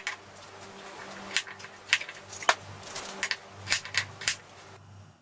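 Kitchen knife cutting small taro corms in half on a wooden cutting board: sharp knocks of the blade meeting the board, eight or so in quick succession from about a second and a half in, over a low steady hum.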